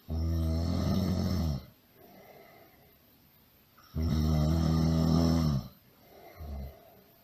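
Loud snoring: two long snores about four seconds apart, with a softer breath between them and a brief snort near the end.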